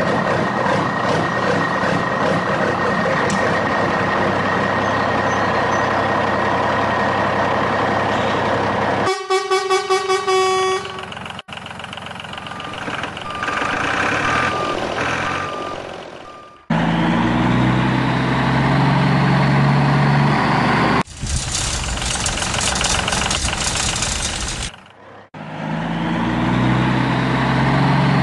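Tractor engine sounds. A steady engine runs, then a quick series of horn toots comes about nine seconds in. Later a low engine idles, breaks off into a few seconds of noisy hiss, and idles again.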